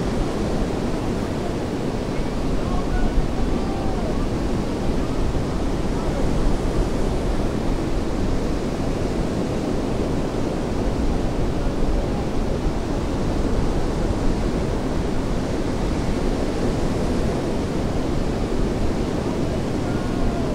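Steady surf washing on a beach, an even rushing noise with no distinct events.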